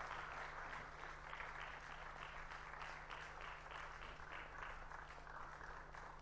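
Faint audience applause, a dense patter of clapping that thins out toward the end, over a steady low electrical hum.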